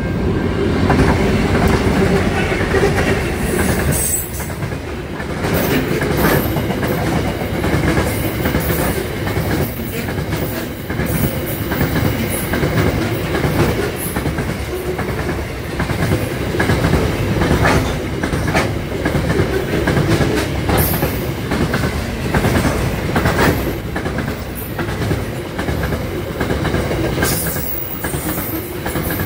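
Aurizon grain train of hopper wagons passing at speed close by: a steady rumbling of the wagons on the rails, with repeated clacks of wheels over the rail joints.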